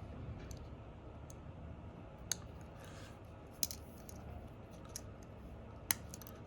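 About five small, sharp clicks and taps, spaced irregularly, from phone parts and tools being handled during a repair, over a faint steady background.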